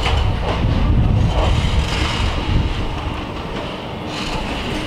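Goa Express passenger train moving along a station platform, heard from inside a coach: a steady low rumble of the wheels on the rails with faint clicks.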